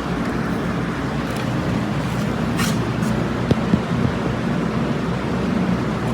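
Steady rushing background noise with a low rumble.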